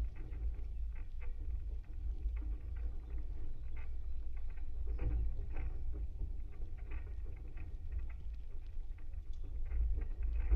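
Wooden maypole heard through contact microphones as its ribbons move in the wind: a steady low rumble with irregular soft taps and creaks through the pole.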